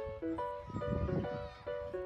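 Background music: a light melody of short notes that change in quick steps.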